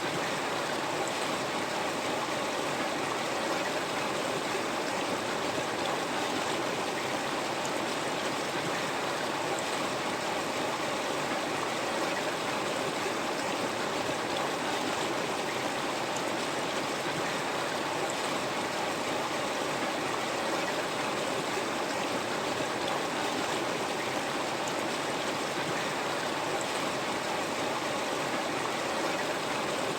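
River water flowing and splashing over rocks in a steady, even rush with no breaks.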